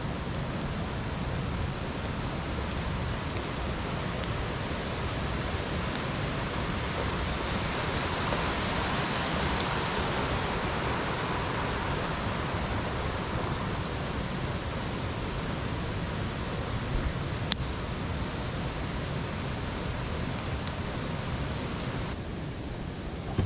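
Steady rushing outdoor forest ambience that swells for a few seconds in the middle, with a few sharp pops from a burning wood campfire.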